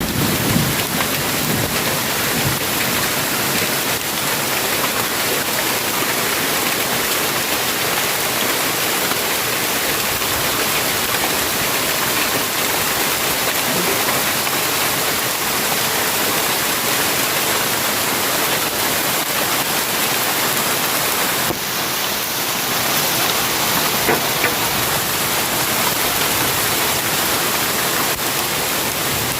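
Hailstorm pelting down: a loud, steady hiss of falling ice and rain.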